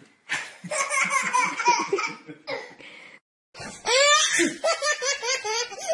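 A baby laughing hard in two long bouts, with a short break about three seconds in.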